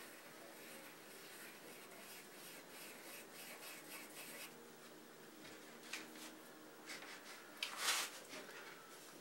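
Pencil scratching on a large sheet of paper in short, quick strokes while a design is drawn, faint. About eight seconds in comes a louder, longer brushing scuff as the hand moves across the paper.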